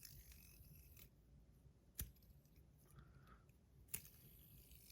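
Near silence with two short sharp clicks about two seconds apart, from a hand-held polished PEI fidget spinner (Bad Butterfly 1.0) being spun and handled.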